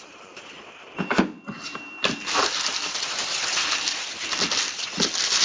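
Crinkling and rustling of foil trading-card pack wrappers being handled and crumpled: a few sharp crackles about a second in, then dense, continuous crinkling from about two seconds in.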